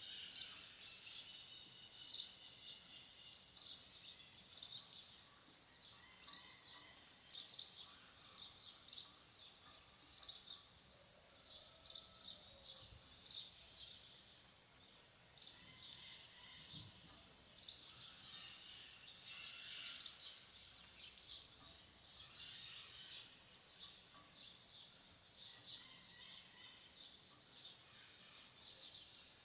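Faint rural outdoor ambience: small birds chirping in quick irregular runs over a soft steady hiss, with one sharp tick about halfway through.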